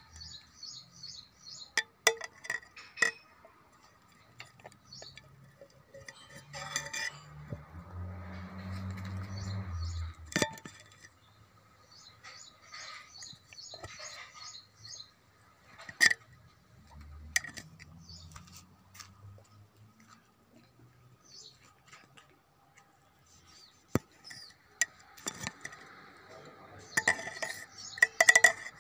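Scattered sharp clinks and knocks, close together near the end, with small birds chirping in short bursts.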